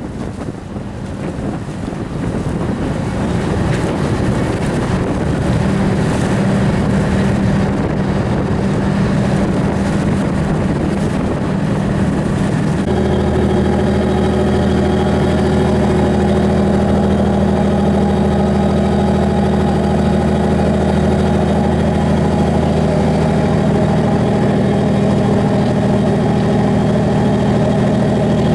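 A motor boat's engine running steadily under way, with rushing noise over it at first. About 13 seconds in it settles into a steadier, even hum.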